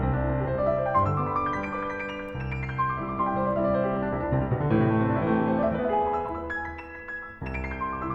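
Background piano music: a melody of held notes over a steady accompaniment.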